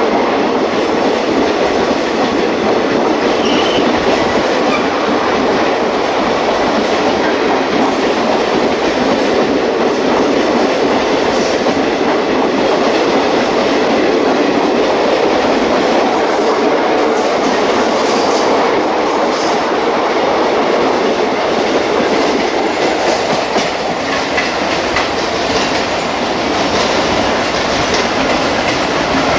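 Coaches of a long express passenger train running past on the rails after departure, picking up speed. The wheels and rails make a loud, steady rushing noise with faint scattered clicks.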